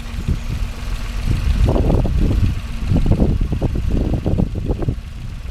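Compact farm tractor engine running as it pulls a dibbler roller across a tilled field, with uneven low rumbling surges from about a second and a half in.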